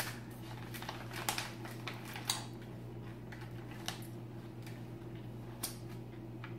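Plastic candy pouch being handled and torn open, giving a few scattered sharp crinkles and crackles, most of them in the first half and two more later, over a steady low hum.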